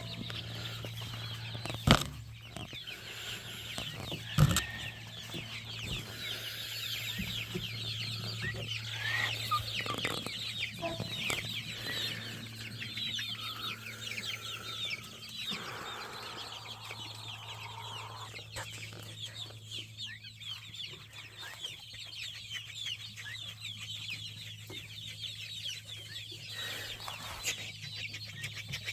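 A flock of chickens clucking and chirping over a steady low hum. Two sharp knocks come in the first few seconds.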